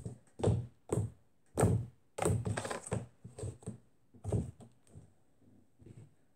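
Hand pressing and patting a lump of homemade kinetic sand slime down on a table: a run of dull thunks, about a dozen, quicker in the middle and fainter near the end.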